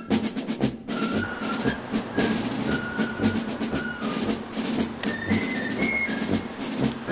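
Background music with a steady drum beat and a high, held melody line that steps up and down in pitch.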